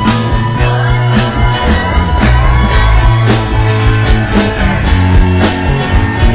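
Rock music playing, with a steady drum beat and bass under guitar.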